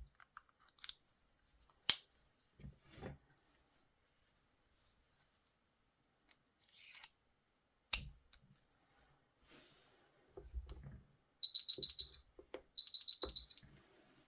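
Plastic key-fob handling with two sharp snapping clicks, then two quick bursts of rapid high-pitched electronic beeping near the end.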